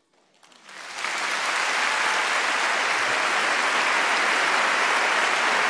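Large audience applauding: a few scattered claps, swelling within about a second into steady applause.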